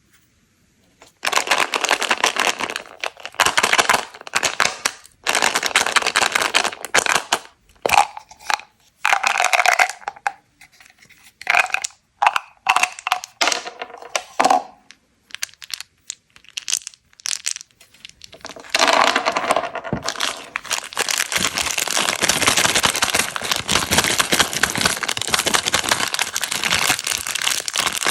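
Crinkling and crackling, as of plastic being handled, coming in bursts of a second or two at first, then without a break from about halfway through.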